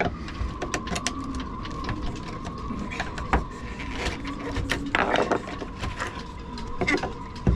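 Repeated clicks, taps and scraping as a panel stuck with sealant is prised and worked free by hand, with a burst of scraping about five seconds in.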